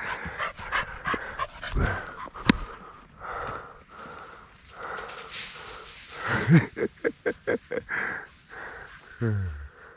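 A dog panting in quick breaths during a game of fetch, with a single sharp click about two and a half seconds in.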